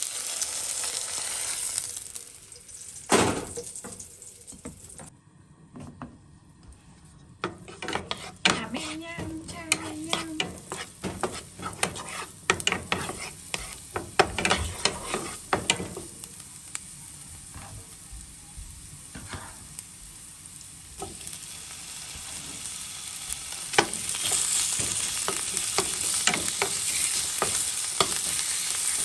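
Chopped garlic and then thin slices of meat frying in oil in a nonstick pan, sizzling while a wooden spatula stirs and scrapes against the pan, with many quick clicks and scrapes. A single sharp knock comes about three seconds in, and the sizzle grows louder in the last few seconds once the meat is in the pan.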